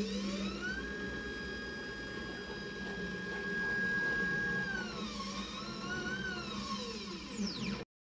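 Genmitsu 4040 Pro desktop CNC with a Makita router running: a steady low hum under a whine that rises in pitch, holds steady for about four seconds, falls, then wavers up and down as the machine moves. The sound cuts off just before the end.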